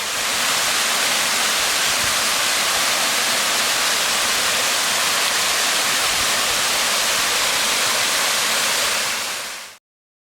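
Waterfall: a steady, dense rush of falling water, heaviest in the hiss range. It comes up over the first half second and cuts off shortly before the end.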